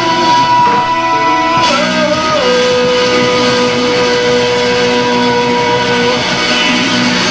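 Live rock band playing loud, with guitar and drums under a lead line of long held notes; about two seconds in the lead note slides down and is then held.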